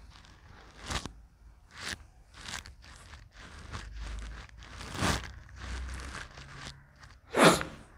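Felt-tip marker writing on a whiteboard: a series of short, irregular scratchy strokes, the loudest one near the end.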